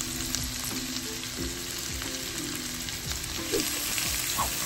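Diced bacon, chopped onion and garlic sizzling in hot oil in a nonstick wok, stirred and scraped with a silicone spatula.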